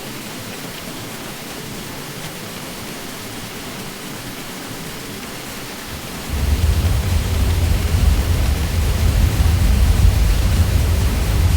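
Ceiling fan running with a steady whooshing hum. About six seconds in, a deep low hum joins suddenly and makes it louder.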